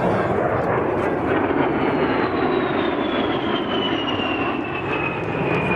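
A-10C Thunderbolt II's twin TF34 turbofan jet engines on a low pass: a steady rushing engine noise with a high whine that slides down in pitch as the jet goes by.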